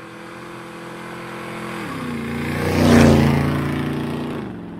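An engine sound effect of a motor vehicle passing by. It grows louder to a peak about three seconds in, then fades away, its pitch dropping as it passes.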